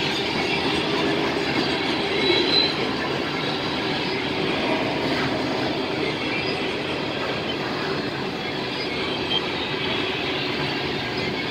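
Freight cars of a mixed freight train rolling past at close range: a steady rumble of steel wheels on rail, with a brief high wheel squeal about two seconds in.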